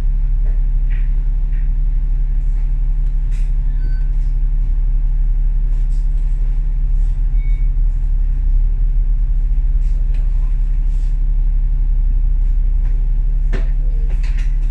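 Cabin noise of a moving Alexander Dennis Enviro500 MMC double-decker bus: steady low engine and road drone, with a few light rattles and clicks from the body.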